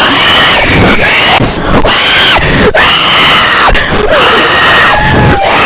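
Several people screaming at once, loud and distorted, with high shrieks rising and falling over and over.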